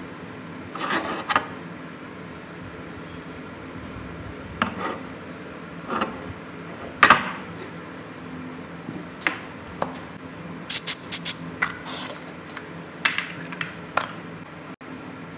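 Rusty iron chisel handled on a wooden tabletop: scattered short scrapes and knocks of metal on wood, with a quick run of sharp clicks in the second half. A faint steady hum runs underneath.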